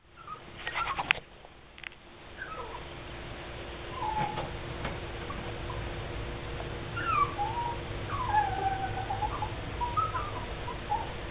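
Dogs whining and whimpering in short, high, rising and falling cries that come again and again through the middle and latter part, with a few sharp clicks about a second in.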